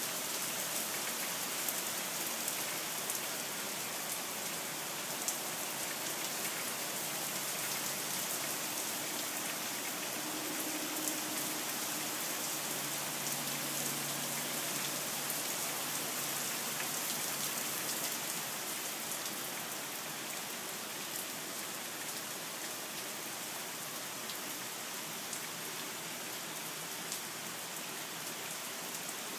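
Steady rain falling on leaves and a wet wooden deck: an even hiss flecked with the ticks of single drops.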